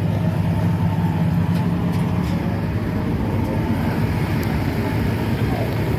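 A steady low engine-like drone running without a break.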